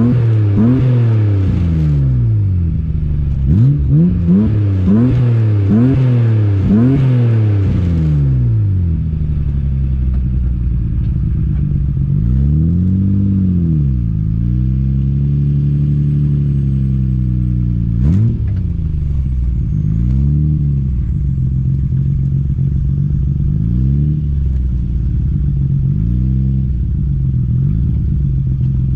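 Nissan Skyline GT-R R32's twin-turbo straight-six heard at the tailpipe of an aftermarket titanium exhaust, revved in quick blips about once a second for the first several seconds. It then settles to idle with a few slower, gentler revs.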